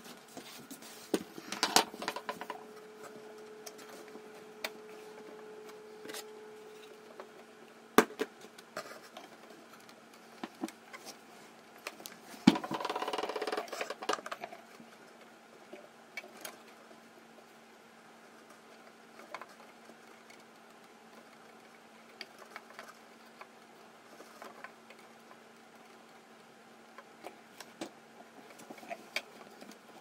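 Clicks, taps and knocks from hands working the tonearm and changer mechanism of a Columbia GP-17 record player, with a louder scraping rustle about halfway through. A steady low hum runs underneath.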